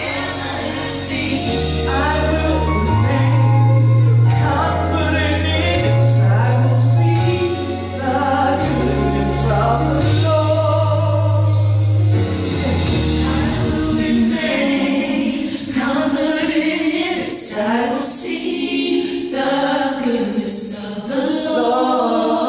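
A woman singing a gospel song into a handheld microphone over musical accompaniment. Deep sustained bass notes run under the first half and drop out about 13 seconds in, leaving the voice with lighter backing.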